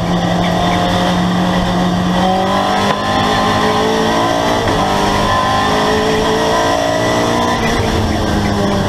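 Race car engine under hard load, heard from inside the cockpit. Its pitch climbs and falls as the car accelerates and backs off, with a brief dip about three seconds in.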